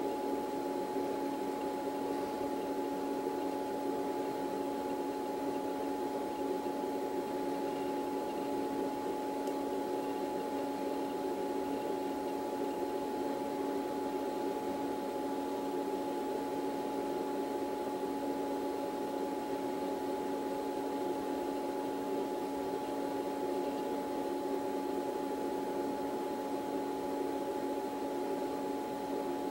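A steady machine hum holding a few constant tones, with no change in pitch or level.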